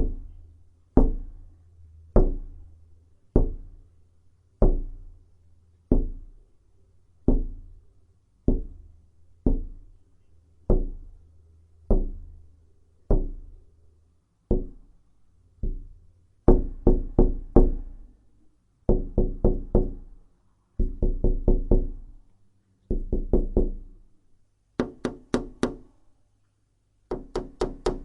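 Tapping on a window pane. Single taps come about one every second and a bit, then quick runs of four or five taps in a row, one run of them sharper and brighter.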